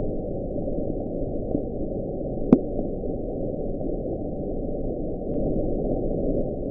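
Underwater recording: a steady low, muffled noise with faint rising sweeps, and one short, sharp upward chirp about two and a half seconds in.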